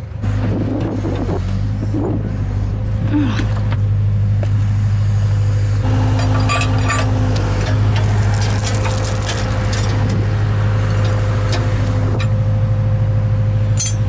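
Compact backhoe's engine running steadily with a constant low drone. A few brief metallic clinks come about six seconds in.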